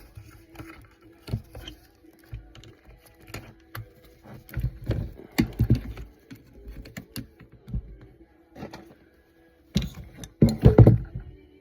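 Scrap metal parts and wire from a dismantled fan being handled and sorted by hand: scattered clicks, clinks and knocks, with heavier clusters of knocks about five and ten seconds in, over a faint steady hum.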